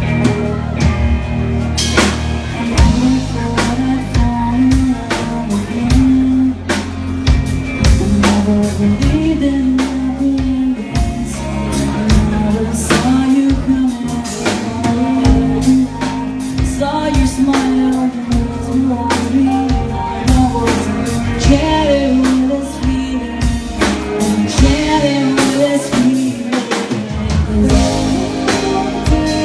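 Live rock band playing a song on electric guitars and a drum kit, with steady drum hits under the guitars.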